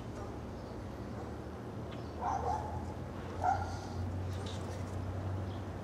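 A few short animal calls about two and three and a half seconds in, over a steady low hum.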